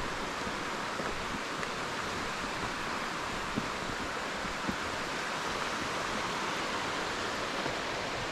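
Steady rushing of fast-flowing water from a creek, an even hiss with a few faint ticks.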